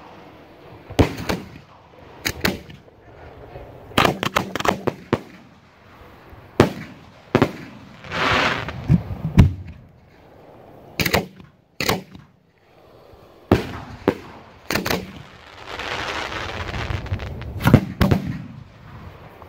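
Consumer aerial firework shells launching from mortar tubes and bursting in an irregular string of sharp bangs, some in quick clusters, with two stretches of hissing crackle about eight seconds in and near the end.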